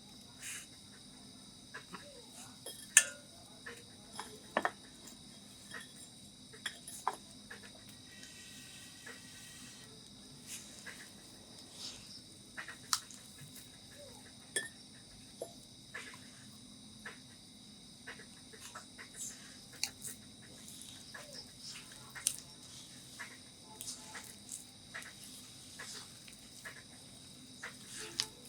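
Scattered clinks and taps of kitchen utensils and bowls during cooking, over a steady high-pitched chirring background typical of crickets.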